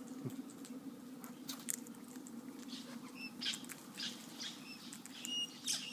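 Parrot making scattered scratchy taps and short, high chirps, more of them in the second half. A steady low hum sits underneath.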